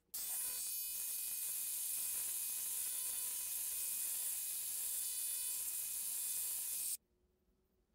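Small Dremel-type rotary grinder with a stone bit running at a steady high-pitched whine as it grinds at a flared steel key inside a bearing bore. It starts just after the opening and stops abruptly about seven seconds in. The stone is soft and is wearing a groove against the steel.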